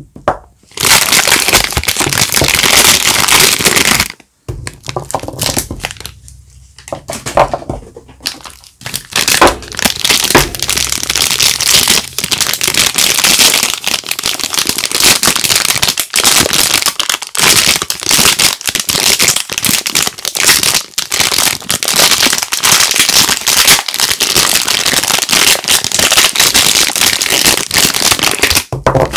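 Soap bar wrappers being opened by hand: dense crinkling and crackling of the packaging, quieter and sparser for a few seconds after about four seconds in.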